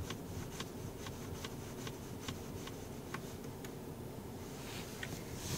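Faint, regular ticking of a car's turn-signal indicator in the cabin of a Mercedes-Benz E300, about three clicks a second. It stops about four seconds in, with a couple of stray clicks near the end.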